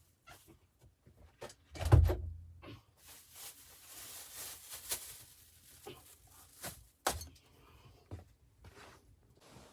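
Scattered small knocks and clicks of things being handled, with one heavy thump about two seconds in and a soft hiss through the middle.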